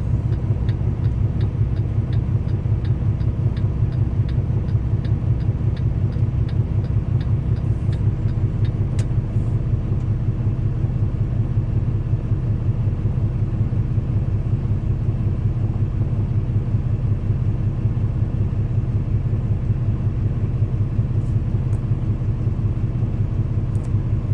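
Semi truck engine running on the road, a steady low drone. A light tick repeats about twice a second through roughly the first nine seconds.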